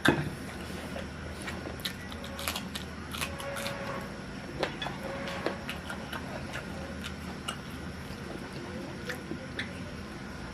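A person eating roasted chicken: a sharp knock as it begins, then scattered small clicks and smacks of chewing and handling the food, over a steady low hum.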